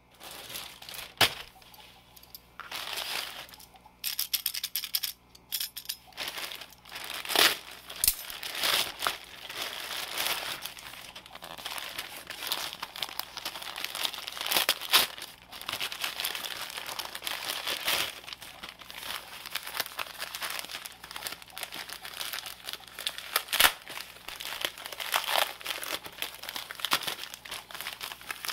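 Gift wrapping paper being crinkled, crumpled and torn off a package by hand, with several sharp rips among the steady crinkling.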